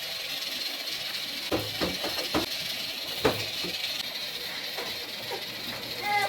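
A few light knocks and clinks of kitchen utensils being handled over a steady hiss, with a short tone near the end.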